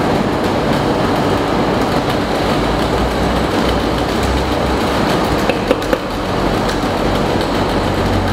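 Steady running noise of concrete 3D printing machinery, with a low hum that grows stronger about a third of the way in and a couple of short clicks just past halfway.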